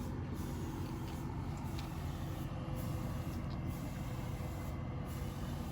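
Steady low mechanical hum of a running machine, even throughout, with a faint steady tone in it.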